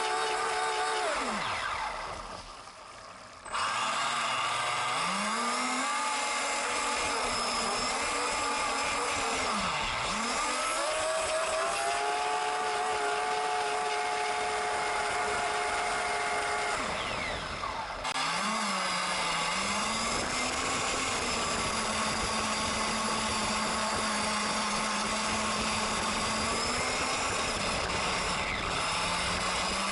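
Electric RC speedboat's motor whining, its pitch rising and falling with the throttle, dropping away briefly twice when the throttle is let off.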